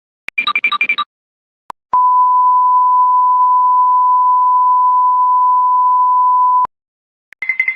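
Electronic sound effects: a quick run of about five rapid beeps lasting under a second, a click, then one long, steady, high beep held for about four and a half seconds that cuts off abruptly, like a censor bleep. Another fast-pulsing electronic tone starts just before the end.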